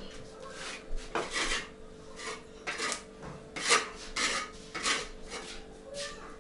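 A hand tool scraping across the bricks of a brick stove's top during masonry repair, in short rasping strokes at about two a second, unevenly spaced.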